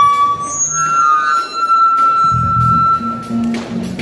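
Live pop-rock band playing with drums, electric guitars, bass guitar and keyboard. A long high note is held over the first half, and the low end drops out and comes back in about halfway through.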